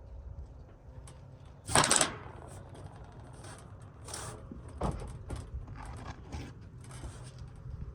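Roofing work on a replacement asphalt shingle: a loud scrape about two seconds in, then irregular softer knocks and scrapes as the shingle is worked into place.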